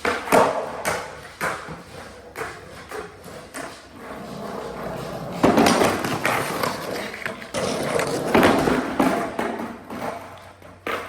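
Skateboard run: sharp clacks and thuds of the board, then two longer stretches of loud wheel rolling and scraping.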